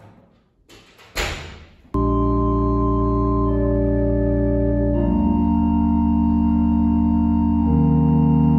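Organ music: sustained organ chords set in about two seconds in and change twice, after a few soft rustles and a brief loud hiss.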